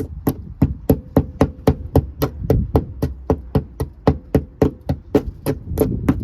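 Steady hammer strikes, about three a second, on the steel rear quarter panel of a 1972 VW Beetle, knocking away flaky paint.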